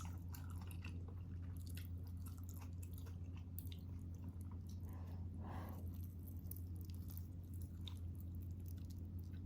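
Close-miked mouth chewing of a beef stew mouthful: many small wet smacks and clicks, over a steady low hum.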